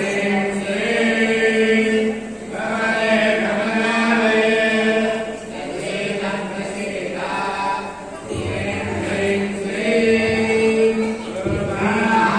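A group of voices chanting a Hindu devotional hymn in unison, a sung recitation held on a few steady pitches. The chant dips briefly about two seconds in and again about eight seconds in.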